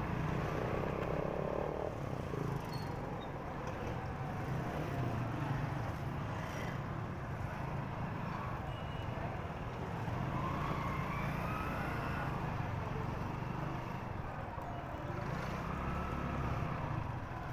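Small motorcycle engine running steadily while riding through busy street traffic, its low hum mixed with the noise of other motorbikes around it.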